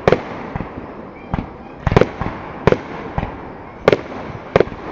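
Aerial fireworks bursting about a quarter mile away: a string of sharp bangs, roughly one every half second to a second, over a steady rumbling haze between them.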